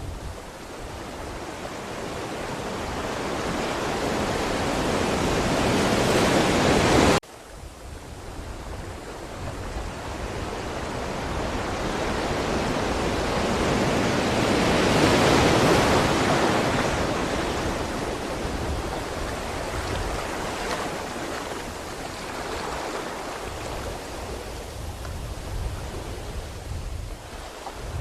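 Ocean waves breaking and washing in: one wave swells for about seven seconds and cuts off suddenly, then another builds to a peak about halfway through and slowly recedes.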